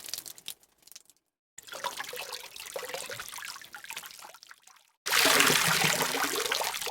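A run of short water sound-effect clips separated by brief silences: a trickling, splashing water sound, then a louder clip of running or pouring water starting about five seconds in.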